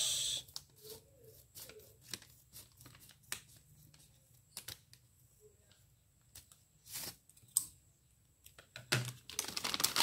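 Scissors snipping a plastic parts bag in short, scattered cuts, with small clicks of handling. Near the end the plastic crinkles loudly as the bag is pulled open by hand.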